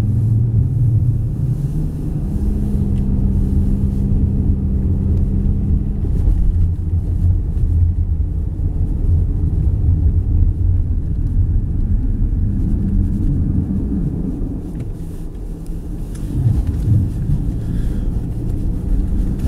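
Car engine and tyre rumble heard inside the cabin while driving on snow-covered streets, a steady low rumble with an engine hum that eases after about six seconds and a brief drop in level near fifteen seconds in.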